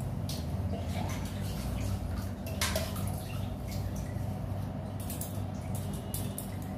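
Water dripping and splashing as a metal puja utensil is rinsed of its Pitambari scouring paste after scrubbing, with scattered short splashes and knocks over a steady low hum.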